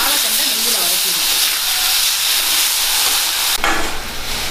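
Chopped banana stem frying in hot ghee in a steel kadai, sizzling steadily as it is stirred with a perforated steel ladle. About three and a half seconds in, the sizzle drops a little and a low steady hum comes in.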